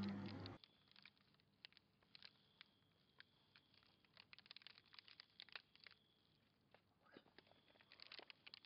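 The tail of a car's tyre skid cuts off abruptly about half a second in. Near silence follows, with faint scattered crackles and ticks.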